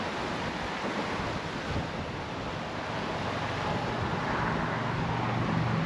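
Steady wind rushing on the microphone over choppy sea water. In the last couple of seconds the low hum of a passing car grows louder.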